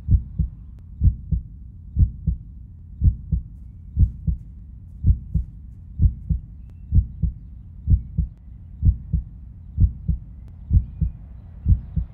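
A slow, steady heartbeat: deep double thumps, lub-dub, about once a second.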